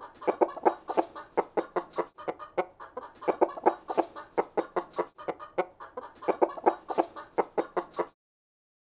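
Chickens making a rapid stream of short calls, several a second, which cut off abruptly about eight seconds in.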